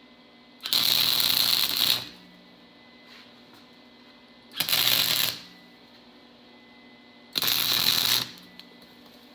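Electric arc welder crackling in three short bursts: about a second and a half, under a second, then about a second. Each burst is a bead being laid to join 1/8-inch steel plate to a steel chain, with a faint hum between the bursts.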